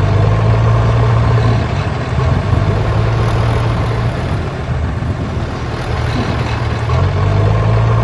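Tractor engine running steadily at low revs, a low, even hum that eases slightly in the middle and swells again near the end.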